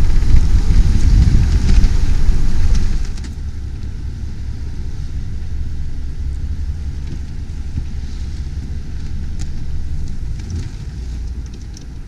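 Wind buffeting the microphone on a sailing catamaran's open deck, a steady low rumble over the rush of the sea. It drops sharply about three seconds in, and a few faint clicks come near the end.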